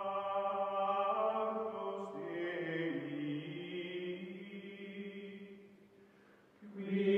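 Slow chant-like music of long held notes. The low notes step down in pitch twice, the sound fades away, and a new held chord comes in loudly just before the end.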